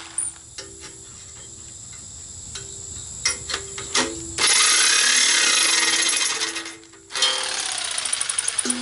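Jigsaw cutting through the thin steel top of a propane-tank tongue drum. It runs loud for about two seconds from halfway in, stops briefly, and cuts again with a fast rattle near the end.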